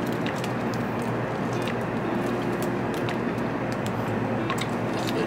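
Steady cabin noise of a Shinkansen bullet train, with the crinkle of a plastic bread bag and scattered small clicks as the buns are handled and eaten.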